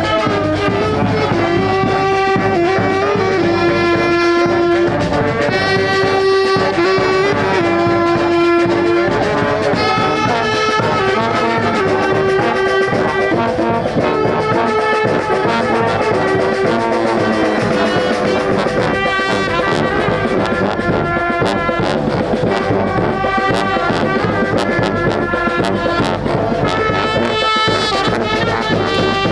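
Street brass band playing a tune, the horns holding notes and moving through a melody over a steady, loud ensemble.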